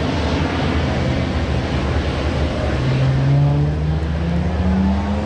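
A car engine running with a deep, steady rumble; its pitch rises slowly over the second half, as the engine picks up speed.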